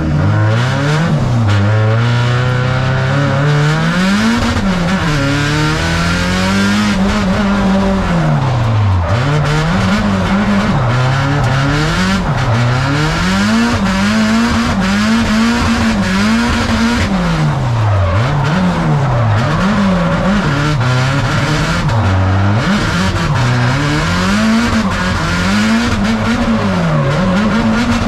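Nissan 180SX drift car engine revving hard, its pitch swinging up and down over and over as the car is driven through a drift, with tyre squeal.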